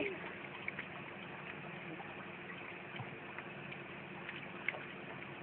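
A cat's meow ends right at the start, then low steady background noise with a faint hum and a few soft, scattered ticks.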